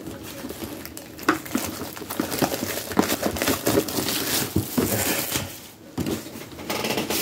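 Packaging of a boxed trading-card collection crinkling and rustling as it is handled and unwrapped, with many small clicks and crackles and a brief lull about six seconds in.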